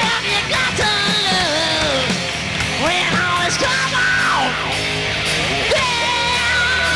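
Live hard rock band playing loud: distorted electric guitars, drums and bass, with high sustained notes that bend, slide and swoop up and down over the band.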